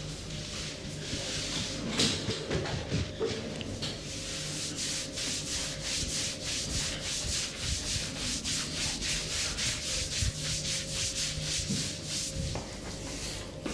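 A barber's hands rubbing briskly over a client during a massage: a scratchy, rhythmic rasp of quick, even strokes, several a second, that grows steadier after about four seconds.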